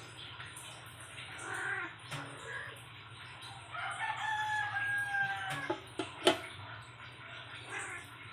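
A rooster crowing, one drawn-out call lasting about a second and a half from about four seconds in. Soon after comes a sharp metal clack, the loudest sound, as the aluminium lid is set on the pan.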